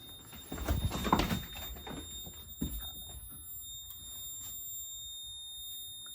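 A fire alarm control panel's built-in piezo sounder gives a steady high-pitched tone with the panel in alarm. Rustling and a few knocks come in the first second or two, with one more knock about two and a half seconds in.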